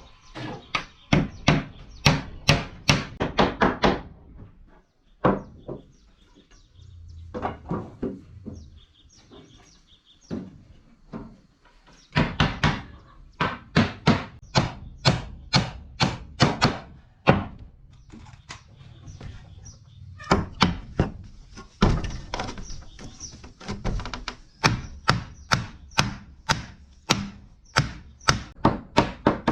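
Rapid repeated strikes of a tool on wood, about four or five a second, in runs of a few seconds with short pauses between.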